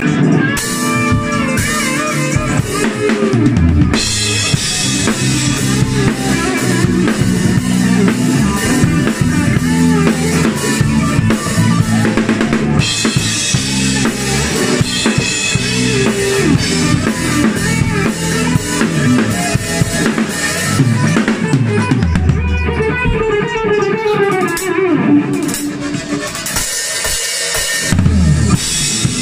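Rock band playing with the drum kit up close: kick drum, snare with rimshots and cymbals driving the beat under electric guitar.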